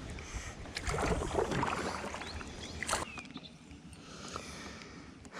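Light knocks and water sloshing from a fishing kayak, busiest and loudest from about a second to two seconds in, with one sharp knock near three seconds.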